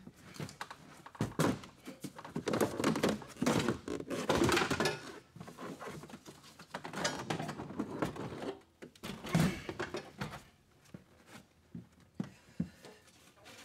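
Metal-cased Toyota Prius V hybrid drive battery pack being shifted and set into place on the car's floor: irregular thunks and knocks with metal scraping.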